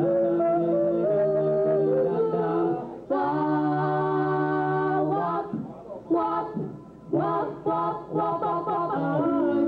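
Four-voice a cappella doo-wop group, male and female singers, singing close-harmony held chords with no instruments. About halfway through, the held chords give way to short, clipped sung syllables before full chords return near the end.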